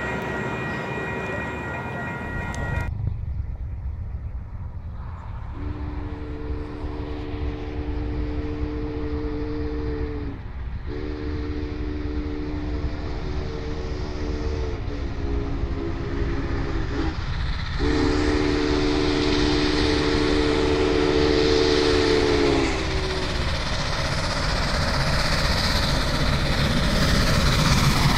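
Union Pacific No. 844's steam whistle sounding three long blasts of a chord of several notes, each sagging slightly in pitch as it closes, over the rumble of the 4-8-4 steam locomotive and its train approaching and growing louder.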